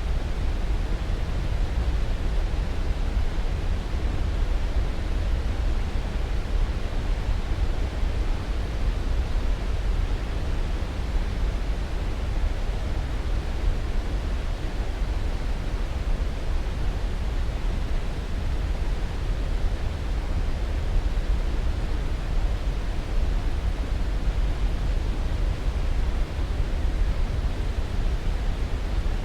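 Steady, unchanging noise, strongest in the deep low end and thinning toward a soft hiss at the top, with no breaks or events: a continuous sleep-aid white-noise track.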